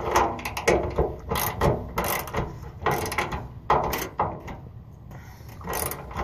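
Ratcheting wrench clicking in short runs as a bolt on the truck's fender bracket is tightened; the clicks thin out over the last couple of seconds.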